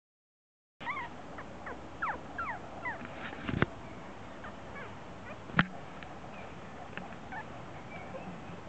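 Havanese puppies giving short, high yips and whimpers as they play, thickest in the first couple of seconds and scattered after. Two sharp knocks, one a little before the middle and one about two seconds later, are the loudest sounds.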